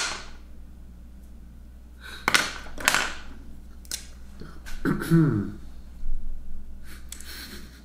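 Quiet desk sounds while drawing with an ink pen: a sharp click at the start, then a few short rustles of a hand on drawing paper. A brief murmured voice comes about five seconds in.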